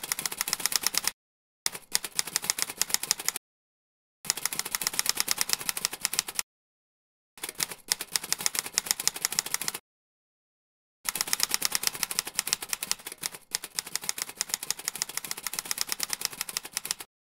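Typewriter keys typing in quick clicking runs: five bursts of keystrokes with dead silence between them, the last and longest lasting about six seconds.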